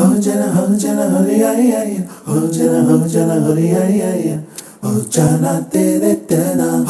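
Music: a voice singing a melodic line with little or no accompaniment, pausing briefly twice.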